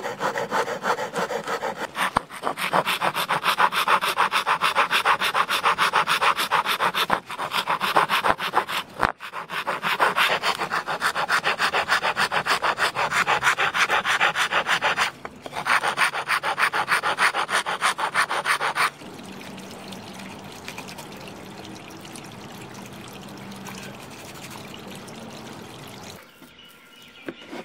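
Hand file rasping across the edge of a round wooden disc in quick back-and-forth strokes, with a few short pauses. About 19 seconds in it gives way to a quieter, steadier rubbing.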